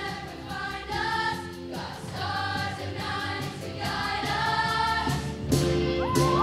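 Middle school show choir of mostly girls' voices singing short phrases together over instrumental accompaniment with a steady beat. High whoops from the audience break in near the end.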